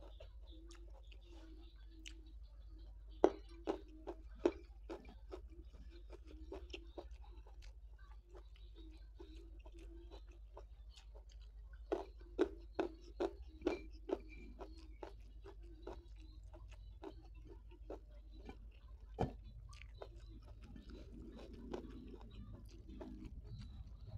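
Close-miked chewing and wet lip smacks of a person eating a handful of rice with sambal: scattered sharp mouth clicks, with loud clusters of smacks about three seconds in and again about twelve seconds in, over a steady low hum.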